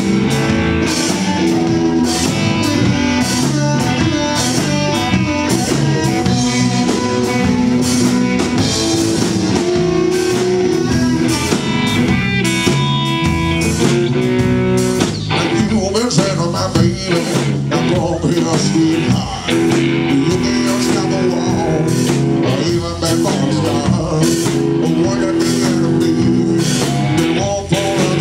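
Live electric blues band playing an instrumental break: electric guitars, bass and drum kit driving a steady beat, with long held notes from a blues harmonica cupped against the vocal microphone.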